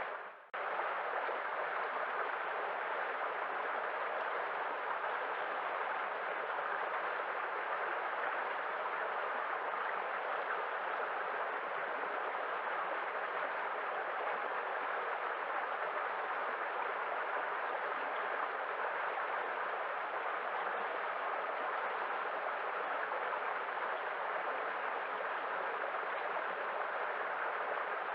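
Waterfall: a steady rush of falling water, broken by a brief dropout about half a second in.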